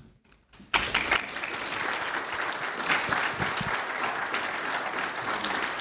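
A congregation applauding. The clapping starts suddenly under a second in and goes on steadily.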